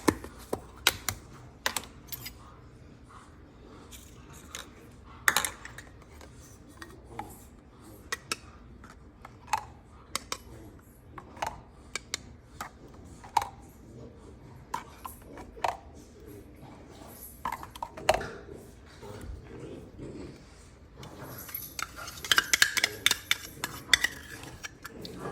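Cutlery clinking and scraping against dishes: scattered sharp clicks a second or so apart, growing busier near the end.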